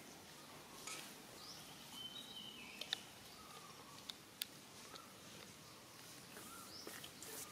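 Faint outdoor ambience with scattered short, high-pitched animal chirps and squeaks, and a few sharp clicks, the loudest about three seconds in.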